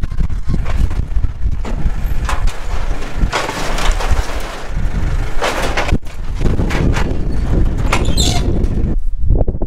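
Tractor engine running under work as the front loader lifts and lowers a cut-up steel trailer into a metal skip, with sharp knocks and spells of scraping from the scrap metal in the middle.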